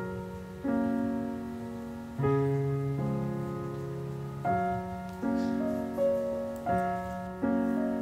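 Slow solo piano music: chords struck about once a second, each left to ring and fade before the next.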